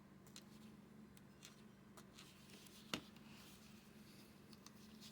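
Near silence with a low steady hum, broken by faint scattered clicks and rustles of small hand work, and one sharper click about three seconds in.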